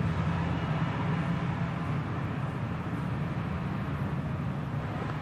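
Steady low background rumble, even throughout, with no distinct events.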